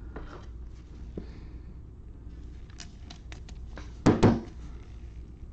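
Light plastic clicks and handling rustle, then two sharp clacks in quick succession a little after four seconds in, as a hard plastic card holder is handled and knocked shut or set down.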